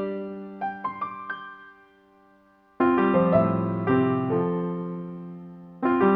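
Background music: gentle piano notes, which fade out about two seconds in before a new phrase of chords begins about a second later.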